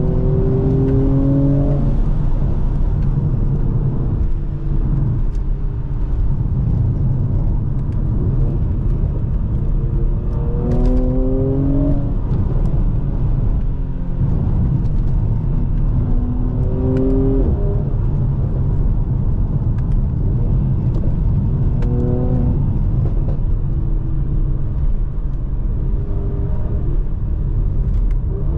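2020 Mercedes-AMG C43's 3.0-litre twin-turbo V6 being driven, its pitch rising in short pulls four times, near the start, about a third of the way in, past the middle and about three quarters through, over steady road and tyre rumble.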